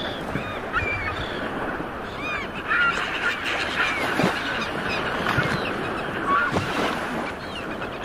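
A colony of penguins calling: many short honking calls overlapping one another, over a steady wash of surf.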